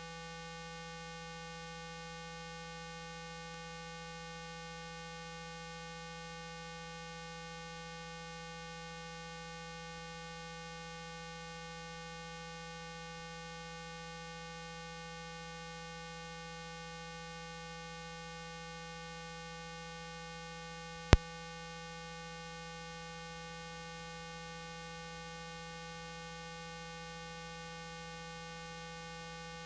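Steady electrical mains hum with a ladder of even overtones, broken once by a single sharp click about two-thirds of the way through.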